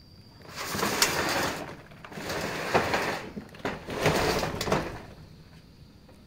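Corrugated metal roofing sheet being dragged across the roof in three scraping pulls, with a few sharp knocks as it moves.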